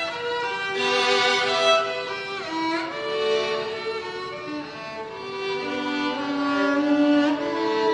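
Violin music: slow, long bowed notes, with a second line sounding beneath the melody.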